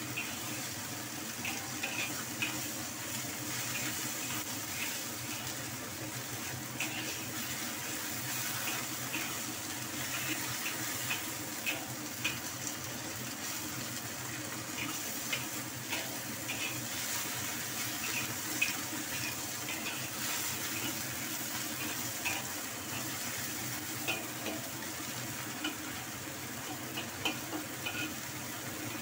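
Vegetables stir-frying in a wok: a steady sizzling hiss, with a metal spatula clinking and scraping against the wok at irregular moments as the food is tossed.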